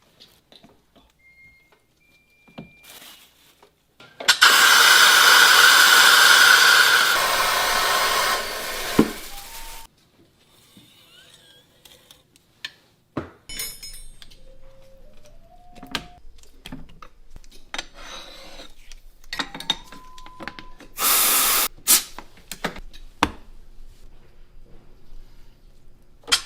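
A small power tool runs steadily for about six seconds, and again briefly near the end, with workbench clicks and handling noises between. A few short, faint, pure whistling notes sound in the gaps, one stepping up in pitch: test notes blown on the unfinished clay ocarina.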